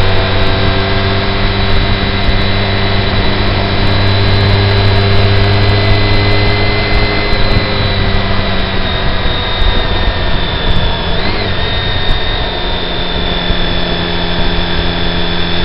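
Car engine and road noise heard from inside the cabin: a steady low drone with a thin high whine over it. The engine note eases off past the middle and picks up again at the very end.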